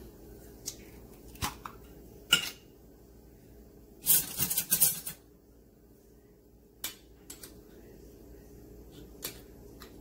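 Ceramic dishes and utensils being handled in a kitchen: scattered light clinks and taps, with about a second of denser clattering near the middle.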